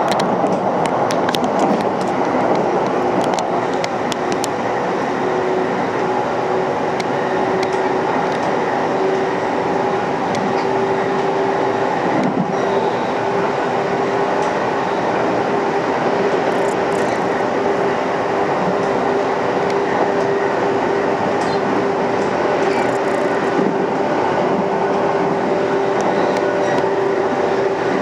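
Electric train running at speed: steady rolling noise on the rails, with a motor whine held at one pitch throughout and a few sharp clicks in the first seconds.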